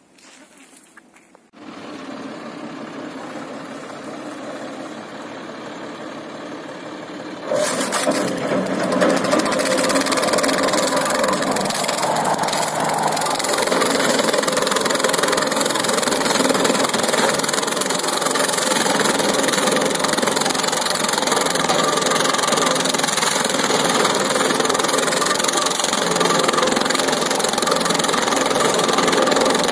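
Tractor engine comes in about a second and a half in and runs steadily. About seven and a half seconds in it turns much louder and noisier as the tractor-driven rotary banana plant cutter runs, chopping old banana stems and leaves into the soil.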